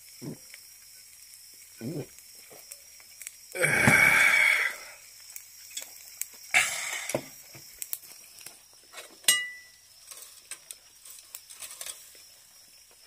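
Beef omasum sizzling on a wire grill over a charcoal shichirin, with light crackles and two loud hissing bursts, about four and about seven seconds in. A short ringing clink comes near nine seconds.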